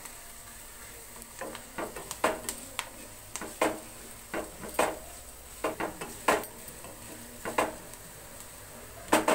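White plastic spatula stirring sliced onions, green chillies and curry leaves frying in oil in a nonstick kadai: a steady sizzle with irregular knocks and scrapes of the spatula against the pan.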